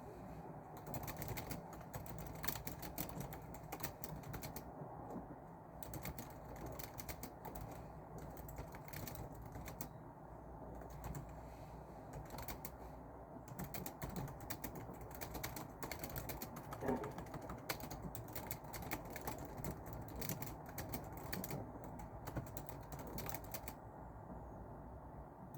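Typing on a keyboard: quick runs of keystrokes broken by short pauses, with a longer pause near the end, over a steady low background noise.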